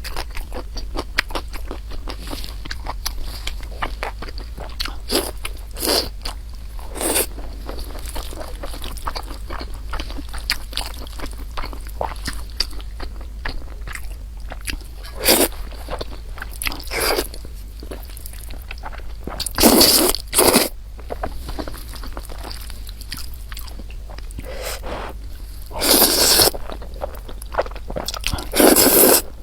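A person eating close to the microphone: a steady stream of small wet chewing clicks, broken by a few louder, short crunching bites.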